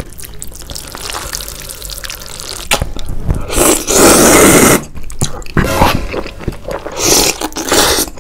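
Loud wet slurping of saucy instant noodles: softer wet eating sounds at first, then two long slurps, one about three and a half seconds in lasting about a second and another about seven seconds in.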